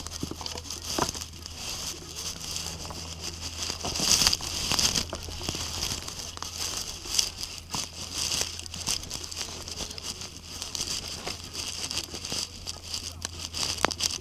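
Wood campfire crackling, with many irregular sharp pops and snaps over a steady hiss.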